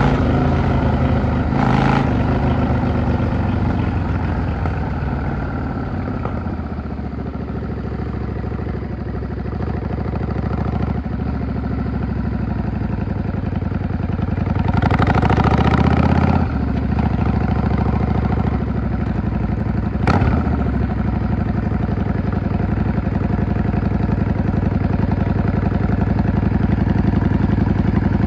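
Yamaha V-Star 650 (XVS650) bobber's air-cooled V-twin engine dropping in revs over the first few seconds, then running at a steady low idle. About halfway through comes a short rev, and there are two single sharp clicks, one near the start and one a few seconds after the rev.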